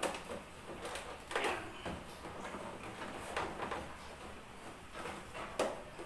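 Plastic front body panel of a Honda Click 125 scooter being pried and pulled loose, giving a handful of short, irregularly spaced plastic clicks and knocks. The panel is new and its clips are tight.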